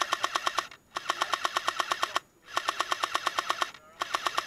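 Airsoft M60 support gun firing on full auto in short bursts of about a dozen shots a second, with brief pauses between bursts.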